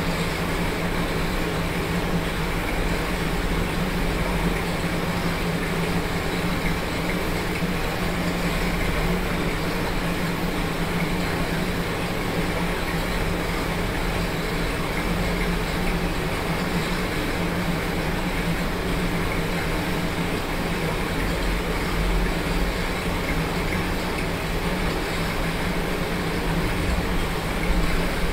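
Steady whirring hum of an electric fan blowing, together with the running of an exercise bike being pedalled. It is unchanging throughout, with a low steady drone underneath.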